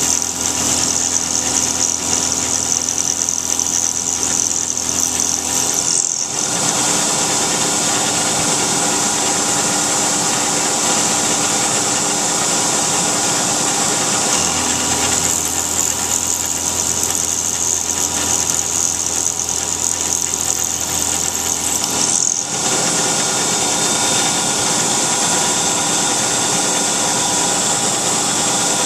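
CNC vertical mill cutting aluminum with an end mill under flood coolant: steady machine hum with steady tones, and a loud high-pitched cutting noise that drops out about six seconds in, comes back around fifteen seconds, and drops out again a little after twenty-two seconds as the cutter passes in and out of the work.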